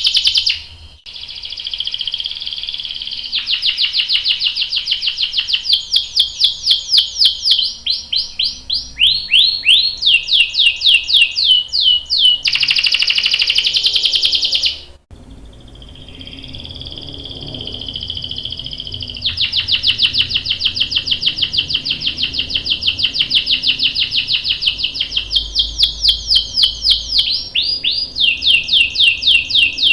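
Domestic canary singing: long rolls of rapidly repeated high notes and runs of quick falling whistles. The song cuts off sharply about halfway through, then starts again with another long roll.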